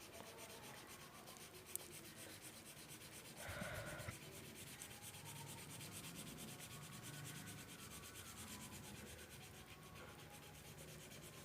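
Faint scratchy rubbing of a felt-tip sketch pen shading back and forth on paper, with a brief louder patch about three and a half seconds in.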